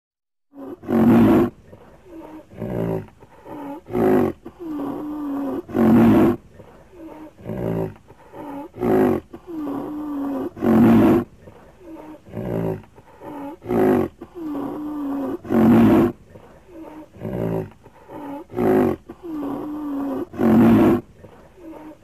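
Sound-designed vocalizations for an extinct woolly rhinoceros: loud roar-like calls alternating with shorter grunts and a held, wavering lower call. The same sequence repeats about every five seconds, with five loud peaks.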